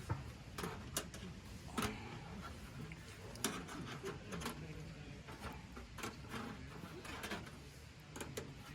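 Irregular light clicks and knocks of cooking gear being handled over a charcoal ember fire, about one or two a second, with a low steady rumble underneath.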